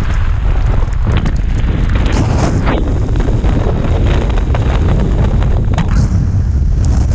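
Extreme wind buffeting the microphone: a loud, continuous low rumble with constant gusting crackle.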